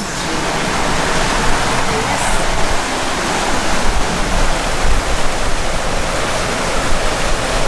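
Loud, steady rush of wind and water around a sailing catamaran under way at speed, with a low rumble, starting abruptly.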